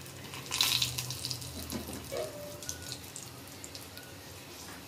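Dried red chillies and cumin seeds sizzling in hot oil in a small aluminium pot as a tempering (baghar). The hiss swells about half a second in, then settles to a lower, steady sizzle with small crackles.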